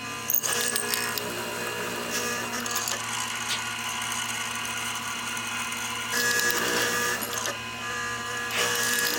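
An electric woodworking power tool starts suddenly and runs with a steady motor whine. It gets louder twice, about six seconds in and again near the end, as it cuts into the wood.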